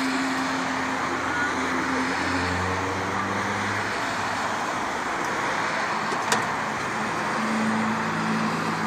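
Road traffic noise: a steady rush of passing vehicles with low engine hum, and a single sharp click about six seconds in.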